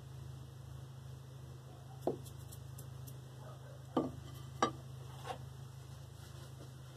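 Four light knocks of a candle and dishes being handled on a tabletop as the coated candle is lifted off its saucer, over a steady low hum.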